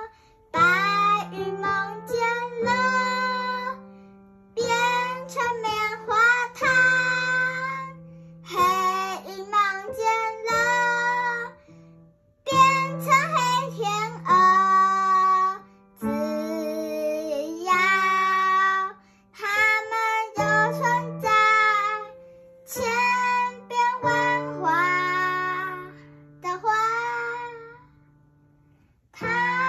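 A young girl singing her own song while accompanying herself on an upright piano, in short phrases over held low piano notes, with brief pauses between phrases and a longer pause near the end.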